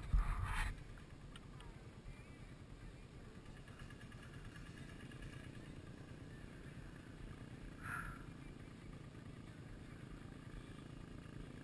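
ATV engine running steady and low, heard faintly, with a brief loud thump right at the start.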